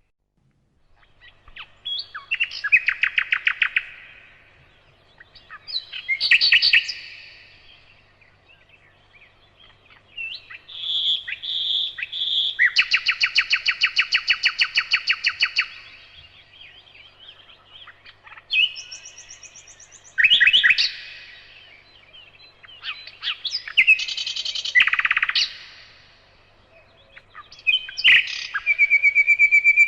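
Songbird singing: a string of fast trills and chirping phrases, each a second or two long, separated by short pauses.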